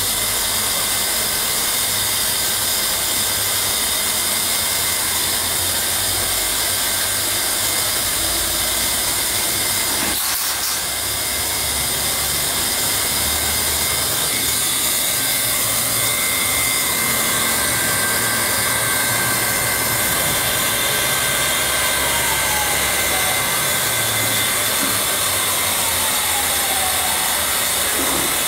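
Handheld hot-air plastic welding gun running steadily: its blower makes a constant rushing hiss with a steady high whine as it blows hot air to weld vinyl floor covering.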